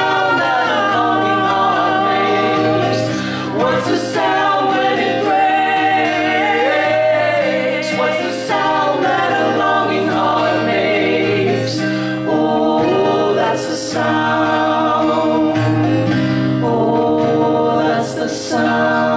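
Live acoustic music: two women and a man singing in close harmony over an acoustic guitar.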